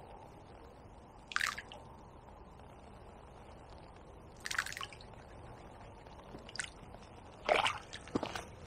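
Two balls of groundbait thrown into a lake, each landing with a short splash, about three seconds apart. Near the end come a few quick rustles and knocks.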